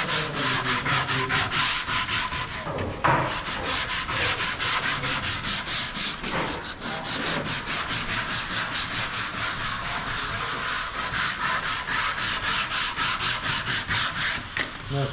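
Sandpaper rubbed back and forth by hand on a wooden cabinet door, a scratchy rasp in even strokes about four times a second, smoothing the wood before lacquer paint.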